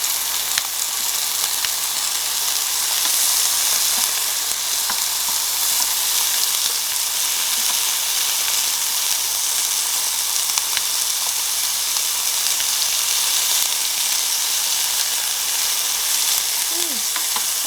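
Slices of pork belly and beef brisket sizzling steadily in their own fat and juices on a Korean barbecue grill, with a few small pops.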